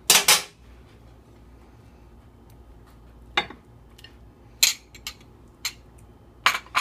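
Metal spoon clinking against a glass bowl and a serving dish while chopped onion is scooped out and sprinkled. The first clink, as it starts, is the loudest; a handful of lighter taps follow from about three seconds in.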